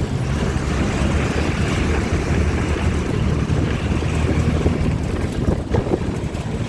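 A heavy machine's engine running steadily at a low, even pitch, with wind buffeting the microphone.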